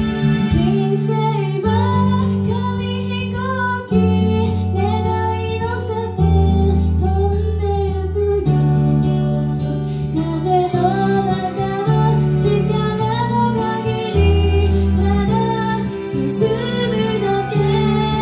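A three-member female idol group singing an upbeat J-pop song into handheld microphones over a backing track with a steady bass line and drum beat.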